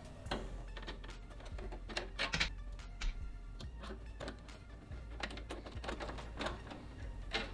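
A screwdriver driving a screw into the metal expansion-slot bracket of a PC case to fix a graphics card in place: a run of small, irregular metallic clicks and ticks.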